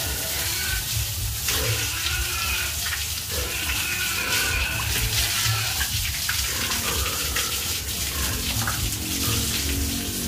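A jet of water from a hose spraying and splashing onto a wet concrete floor and wooden pen boards, a steady hiss with a low rumble underneath.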